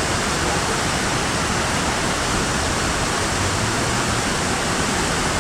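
Steady rushing roar of a large waterfall: dense, even water noise with no breaks.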